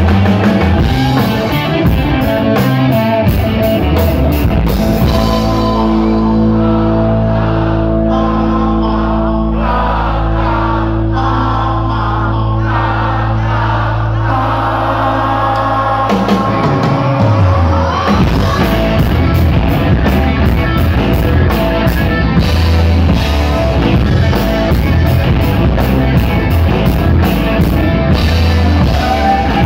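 Live hard rock band playing loud: a male singer's high voice over electric guitars, bass and drums. Partway through the band holds long sustained notes with the drums mostly dropping out. About 17 seconds in, a falling slide leads back into the full band with pounding drums and cymbals.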